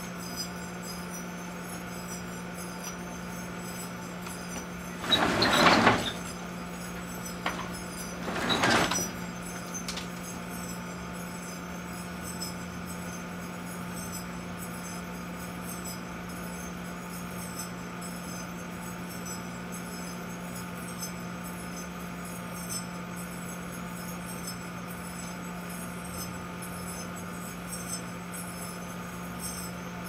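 Large Kenmore microwave oven running with a steady hum while a plasma globe glows inside it. Two short, loud bursts of noise come about five and about eight and a half seconds in.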